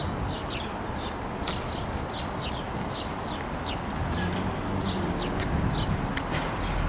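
Small birds chirping, short high chirps a few a second, over steady low background noise.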